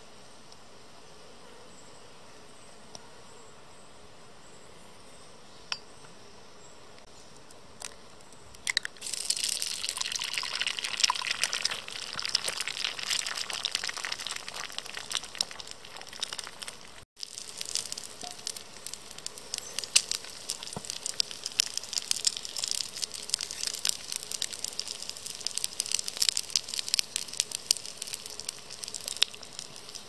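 Food sizzling and crackling in hot oil in a small camping pan, starting suddenly about nine seconds in with a dense, steady crackle. Before that there is only faint background with a few isolated clicks.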